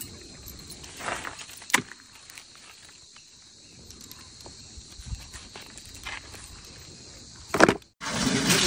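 A steady high buzzing of insects, with a few short knocks and handling noises as raw cuts of ram meat are handled. Near the end, hands are rubbing wet mud onto the outside of a large metal cooking pot.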